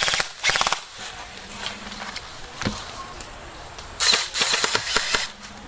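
Airsoft guns firing short full-auto bursts of rapid clicking shots: one right at the start and another about four seconds in, with a single knock in between.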